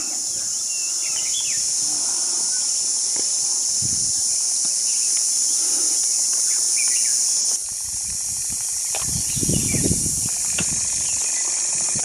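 Steady high-pitched insect drone from the forest, dropping in level about two-thirds of the way through, with a few faint bird chirps. About nine seconds in, a gust of wind buffets the microphone.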